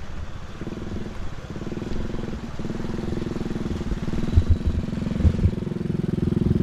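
A small motorcycle engine running close by, starting about half a second in and getting louder toward the end, with a couple of low thumps.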